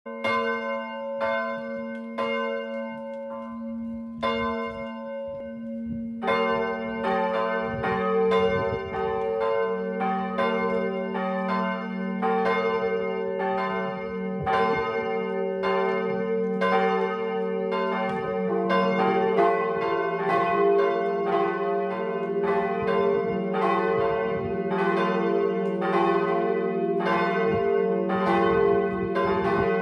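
Bells in the tower of the Protestant church in Windesheim ringing. A single bell strikes about once a second; about six seconds in more bells join, and another joins near the nineteenth second, making a full, dense peal.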